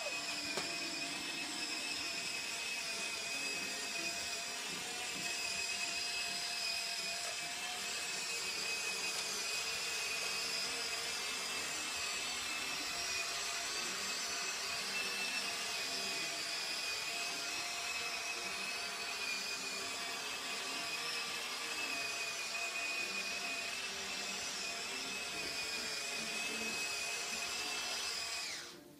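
Electric drive motors and gearboxes of an RC-converted Bruder CAT D11 toy bulldozer, whining steadily at a high pitch as it drives, then cutting off abruptly near the end.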